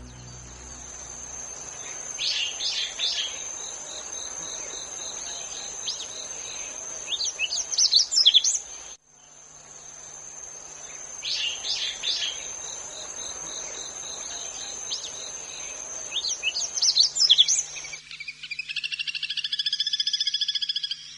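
Wild bird calls over a steady high-pitched insect chorus, with short clusters of call notes coming twice and then again. In the last few seconds the insects stop and a different, rapidly pulsed call takes over.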